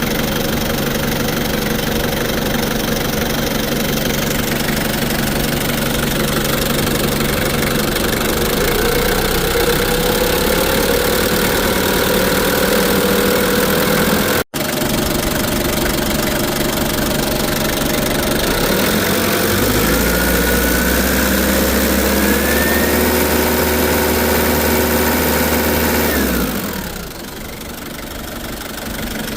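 Nissan 2.5-ton forklift's diesel engine running steadily, now starting after its bad battery was replaced. There is a brief break about halfway through, a slowly rising whine later on, and the sound drops away a few seconds before the end.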